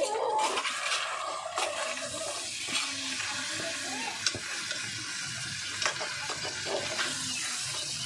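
Crabs cooking in a pot, a steady watery hiss of simmering liquid with a few faint knocks.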